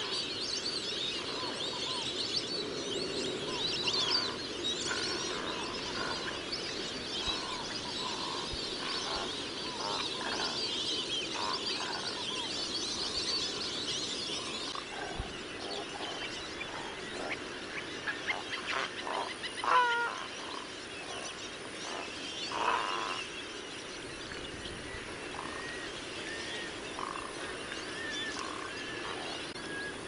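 Wild birds calling over a steady wetland background, with many short scattered calls. A high chorus is strongest in the first half, and the loudest calls come about twenty seconds in and again a few seconds later.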